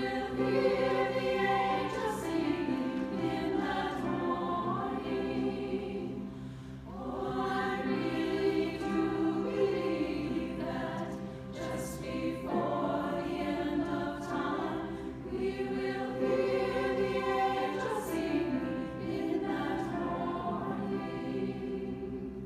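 Mixed choir of men's and women's voices singing together in a church, phrase after phrase with short breaths between them.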